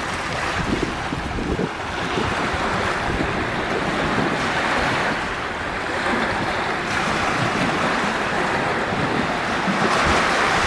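Steady wash of small waves on a sandy bay shore, with wind buffeting the microphone.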